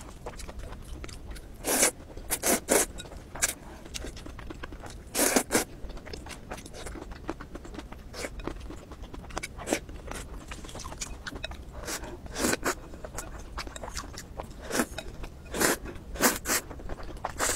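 Close-miked eating: noodles slurped in short, irregular bursts a second or several apart, with chewing and mouth noises between.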